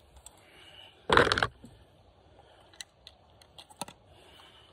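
Handling noise: a short rustling clatter about a second in, then a few light, scattered clicks.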